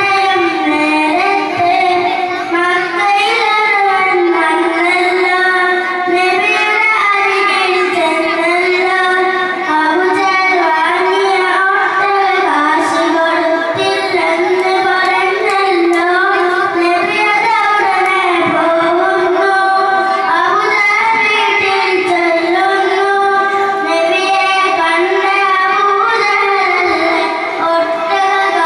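A boy singing solo into a handheld microphone, his voice amplified through a loudspeaker, in a continuous melodic line with long held notes that waver and bend.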